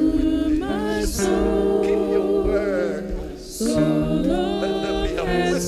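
Slow gospel worship singing, several voices holding long notes together, with a short pause about three and a half seconds in.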